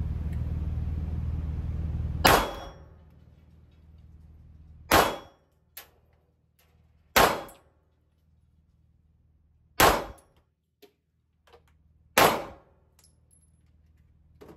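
Five handgun shots fired slowly, two to three seconds apart, each ringing briefly off the walls of an indoor range, with a few faint clicks between them. A steady low hum comes before the first shot.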